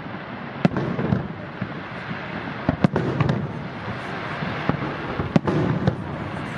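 Aerial fireworks display: shells bursting in irregular sharp bangs over continuous crackling and rumbling, with the loudest reports about three seconds in and again near the end.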